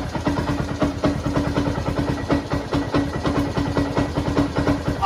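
Motorcycle engine idling with a steady rapid pulsing.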